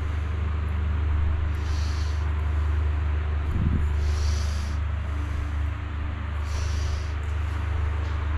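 A steady low hum from some running machine or fan, with a soft hiss coming back about every two and a half seconds.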